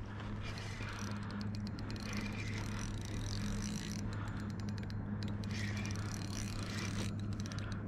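A steady low hum with a higher overtone that fades in and out, over faint background noise with a few scattered light clicks.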